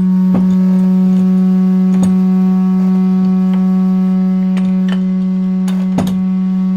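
A loud, steady hum held at one low pitch with overtones, with a few light clicks and knocks from handling the C-clamp screw and its handle.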